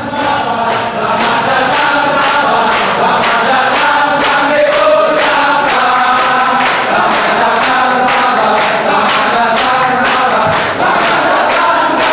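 A choir singing a song over a steady beat, the voices held on long sung notes.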